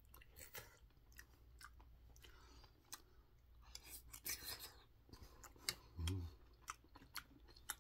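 Faint close-up chewing of a mouthful of bibimbap, rice soaked in broth and spicy sauce, with many small wet mouth clicks; a short low hum about six seconds in.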